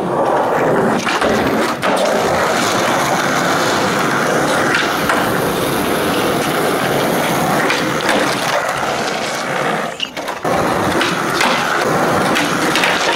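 Skateboard wheels rolling on a smooth concrete floor, a steady rumble, with a few sharp knocks and a short drop in the rolling noise about ten seconds in.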